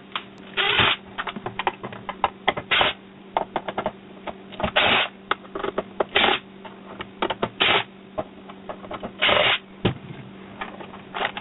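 Screws being worked out of a rice cooker's lid and the parts handled: a run of small clicks and taps, with short scraping rasps every second or two.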